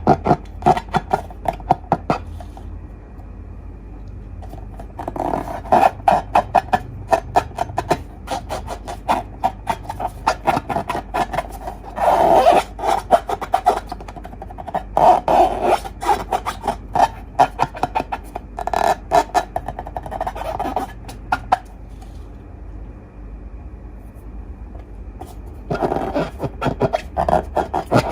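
Slime being squeezed and stretched by hand, giving dense runs of small sticky clicks and pops in several bursts with short pauses between.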